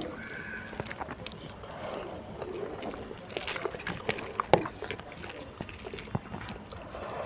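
Eating by hand: fingers squeezing and gathering cooked noodles on a steel plate, with chewing from a full mouth. Scattered small clicks run throughout, with one sharper knock about four and a half seconds in.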